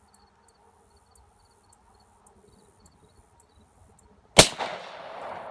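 A single shot from a Glock 20 10mm Auto pistol about four seconds in: one sharp crack followed by a long echoing decay.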